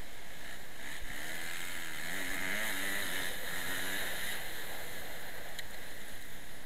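Motocross bike engine revving up and down through a bend, heard through a helmet camera under heavy wind hiss; the engine note is clearest a couple of seconds in, then sinks back into the wind noise.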